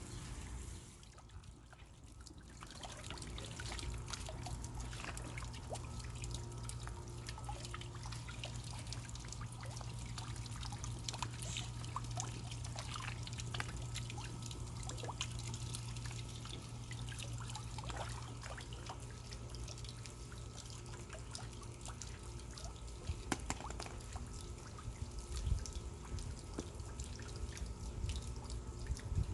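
Water trickling and dripping steadily, with many small drips and splashes over a steady low hum.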